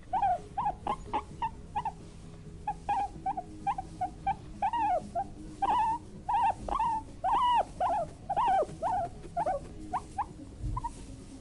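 Guinea pig giving a long run of short squeaks, several a second in uneven bursts, some rising and falling in pitch: the calls of an angry, agitated guinea pig.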